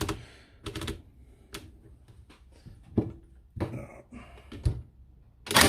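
Ryobi R18ST50 18V cordless crown stapler fired on its low power setting into softwood, with handling knocks between shots: several separate sharp clicks and snaps, the loudest near the end.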